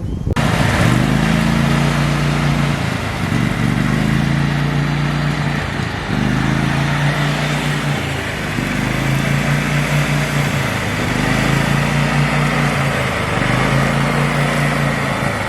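Riding lawn mower's small engine running, its speed sagging and picking back up every two to three seconds. The mower has just been fixed with a new part; it starts but keeps shutting off.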